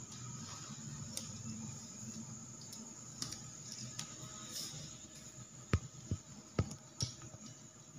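A steady low hum with scattered light clicks and taps, then four dull knocks in quick succession in the last few seconds.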